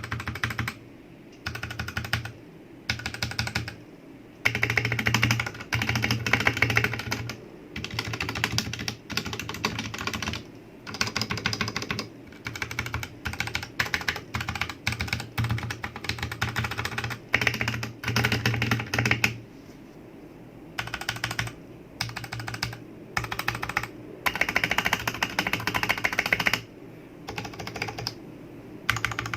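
Typing on a Royal Kludge RK71 mechanical keyboard with brown switches: quick runs of clacking keystrokes in bursts, broken by short pauses.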